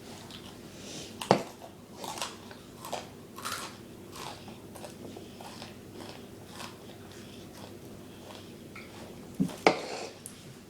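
Irregular crunching and chewing close to the microphone, with a sharp click about a second in and two more near the end.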